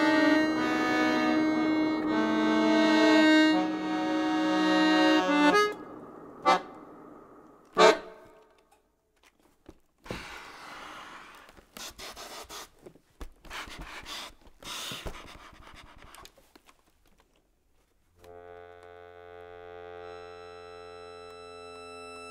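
Contemporary music for accordion and tape: a loud, dense accordion chord held and then cut off about five and a half seconds in, followed by two short sharp stabs. Then faint breathy, scratchy noises come in short bursts with silent gaps, and from about eighteen seconds a new steady chord of clear sustained tones fades in and slowly grows louder.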